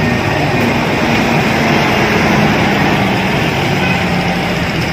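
Diesel engine of a coach bus running steadily as the bus moves off close by, over street traffic noise.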